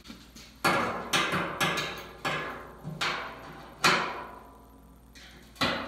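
Hand tool tapping a return-line fitting into the drilled hole in a new metal fuel tank. Seven sharp strikes come about half a second to a second apart, with a longer gap before the last, and each one rings out through the hollow tank.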